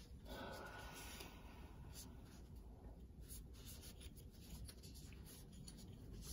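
Faint dry wiping: a cloth shop towel rubbed over the plastic piston of a Haldex air relay valve, in quick scratchy strokes, cleaned without solvent.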